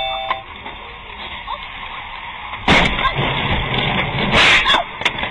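Car crash heard from inside a following car: two loud crunching impacts, one about three seconds in and another about a second and a half later, over steady road noise.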